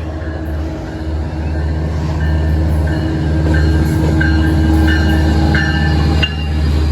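A train running close by, its low rumble growing louder, with short high-pitched squeals coming and going from about two seconds in.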